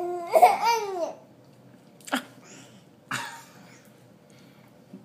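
Baby vocalizing: one pitched babbling squeal that rises and falls for about a second, then a short click about two seconds in and a brief breathy burst about three seconds in.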